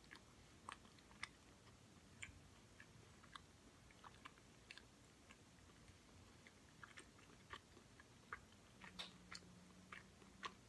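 Quiet close-up chewing of a soft pastry pocket (a Tofurky broccoli and cheddar pocket), with irregular small wet mouth clicks. A low steady hum lasting about two seconds comes in near the end.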